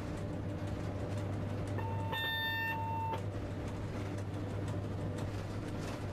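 Steady low hum and running noise inside a locomotive cab at slow speed, about 25 km/h. About two seconds in, a single pitched beep sounds for about a second and a half.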